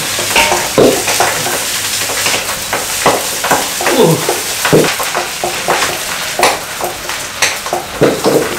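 Metal spatula scraping and stirring in a wok of frying egg, with a steady sizzle under irregular scrapes of the spatula on the pan.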